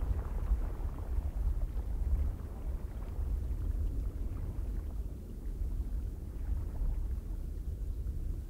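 Wind with a deep, gusting rumble, its loudness rising and falling unevenly.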